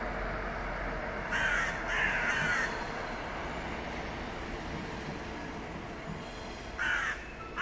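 Passenger train rolling across a railway bridge overhead, a steady rumble that eases slightly as it passes. Over it, loud harsh bird calls come twice a little after a second in and twice more near the end.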